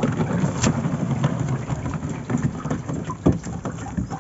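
A wet fishing net being hauled and handled by hand in a boat: a dense, continuous crackle of rustling mesh and spattering water.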